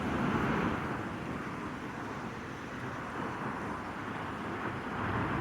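Road traffic going by: a steady rush of passing vehicles that swells a little in the first second and again near the end.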